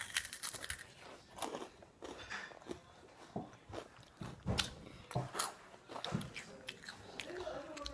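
Someone eating: irregular chewing and biting with small crunches.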